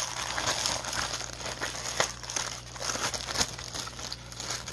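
Clear plastic wrapping crinkling and crackling as it is handled and pulled off a packaged kitchen tool, with a steady stream of small crackles.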